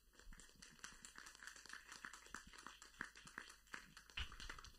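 Faint, scattered hand-clapping from a small audience, irregular claps throughout.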